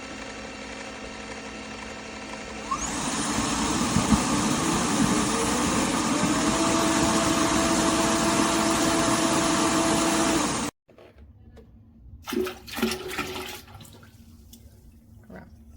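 Roborock F25 ACE wet-dry vacuum mop running its self-cleaning cycle in the dock: a steady lower hum, then about three seconds in the suction motor spins up with a rising whine and runs steadily with a watery rush as it draws cleaning water through the roller. It cuts off suddenly about eleven seconds in, and a couple of faint knocks follow.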